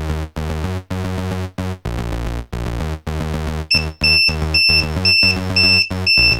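Electronic background music: synthesizer chords pulsing in a steady rhythm, about three a second. About four seconds in, a high, bleeping synth line joins on the beat.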